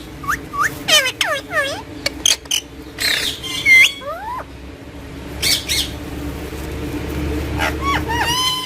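Green Psittacula parakeet squawking and chirping: a quick run of short calls that fall in pitch, a louder call and a short rising whistle about four seconds in, then more squawks near the end. A steady low hum runs underneath.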